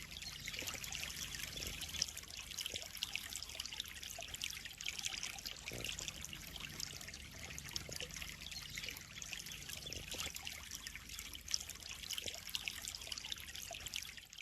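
Water trickling and splashing steadily in a koi pond, a continuous rush of running water with a faint low hum underneath.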